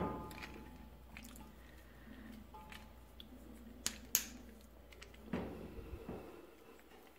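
Faint handling noises of a gas regulator and its hose clamp being worked by hand: light rubbing and knocks, with two sharp clicks close together about four seconds in.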